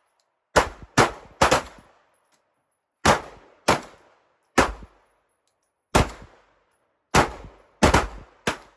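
Pistol shots from a 9 mm Glock 26 subcompact, fired one at a time in small uneven groups, about ten shots, each trailing off in a short echo.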